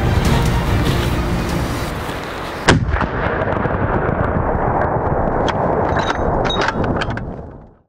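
Background music, cut off about a third of the way in by a single loud hunting-rifle shot. A few seconds of rushing noise with scattered clicks follow and fade away near the end.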